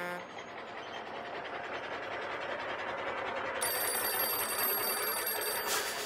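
Animation sound effects: a delivery truck driving along, then an old-style telephone bell ringing from about three and a half seconds in and cutting off just before the end.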